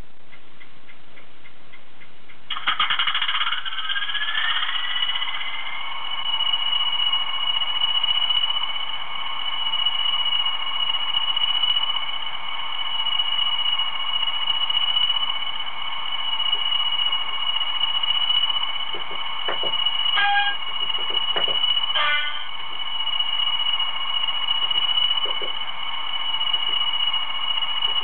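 Bachmann Class 20 model's DCC sound decoder playing English Electric diesel sounds through the loco's small speaker. A few clicks of cranking come about two and a half seconds in, then a rising whine as the engine starts, settling into a steady idle with a high whistle. Two short horn notes sound about twenty and twenty-two seconds in.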